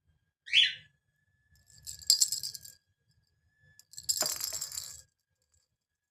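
A cockatiel gives one short rising chirp, then a rattling toy ball is knocked about, rattling twice for about a second each.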